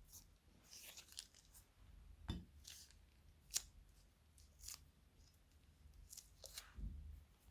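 Faint, irregular snips and crackles of plastic bags and foam bricks being cut and handled for slime, with one sharper snip about halfway through.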